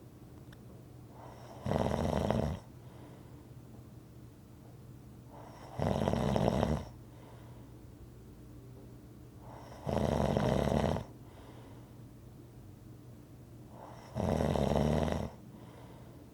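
Rhythmic snoring: four snores, each about a second long, about four seconds apart, with a faint steady low hum between them.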